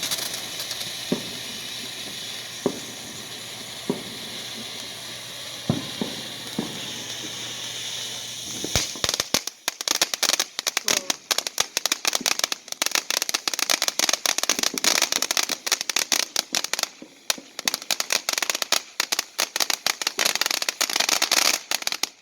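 "Martian Man" novelty firework burning with a steady hiss and a few sharp pops, then, about nine seconds in, breaking into dense rapid crackling that cuts off suddenly near the end.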